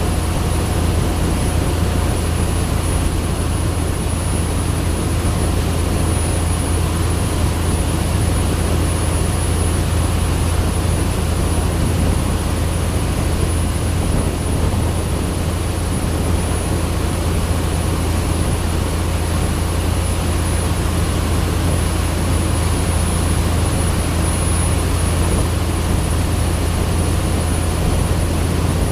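A boat's engine running loudly and steadily at an even speed, with a deep low hum and a thin high whine over it.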